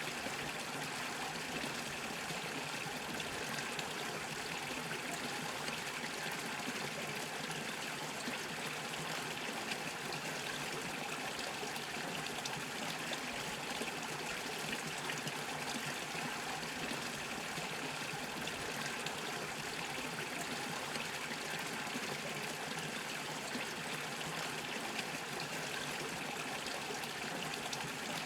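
Small brook bubbling and trickling steadily over stones.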